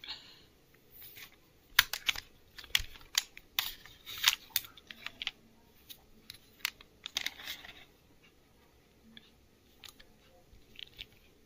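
Hard plastic and metal parts of a phone tripod being handled: a quick run of sharp clicks and clacks mixed with brief rustling, busiest in the first eight seconds and then only a few light clicks.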